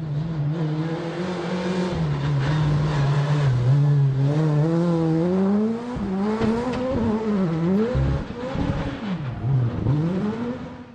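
Rally car engine running hard on a stage, held at steady revs at first, then climbing, with the revs dipping and rising again several times through the second half as the car is driven through a hairpin bend.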